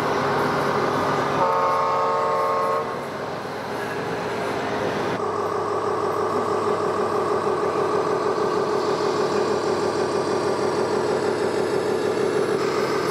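An RC model truck's sound module gives a single horn blast of about a second and a half, near the start. Simulated diesel engine sound then runs steadily through a small speaker.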